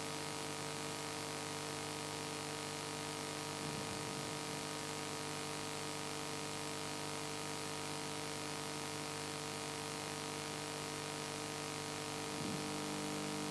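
Steady electrical hum and hiss of a recording's background noise, with no speech.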